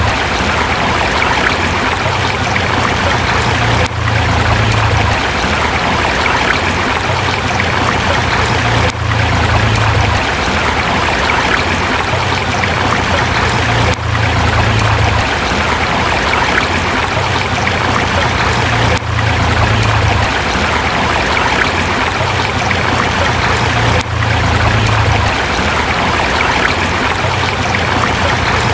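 River water rushing and burbling over rocks, a steady dense rush with a brief dip in level about every five seconds.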